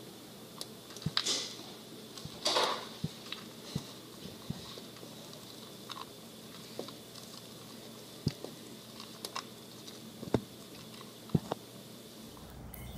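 Hamster nibbling on hard green food pellets: irregular small crunching clicks, with two short rustles in the first few seconds.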